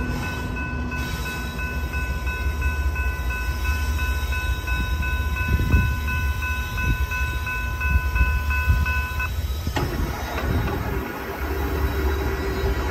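Railroad crossing bell ringing in a steady, even pulse over a low rumble; the bell stops about nine seconds in, followed by a sharp click as the crossing gate mechanism starts raising the gate arm, and a steady hum after that.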